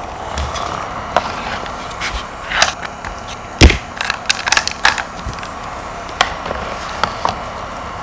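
A small USB mini desk fan running with a steady whir, under sharp plastic clicks and knocks from handling its casing and sliding out its plastic water tray. The loudest knock comes about three and a half seconds in, followed by a quick run of clicks.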